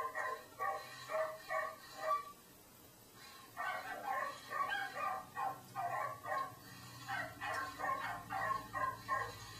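A small dog yapping in quick runs of short barks, several a second, with a pause of about a second a little after two seconds in.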